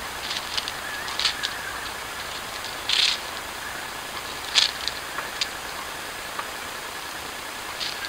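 Bowerbirds at their bower making a scatter of short, harsh rasps and clicks. The loudest comes about three seconds in and another about a second and a half later.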